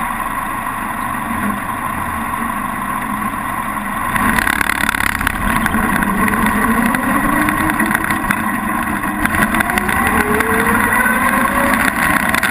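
Vintage car engine running, growing louder about four seconds in, then accelerating with a rising pitch over the last few seconds.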